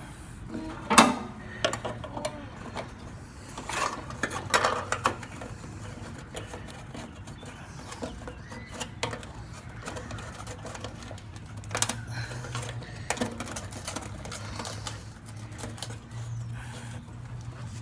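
Scattered light clicks and knocks of fuel pump parts being handled and fitted by hand, the loudest about a second in and around four to five seconds in, over a steady low hum.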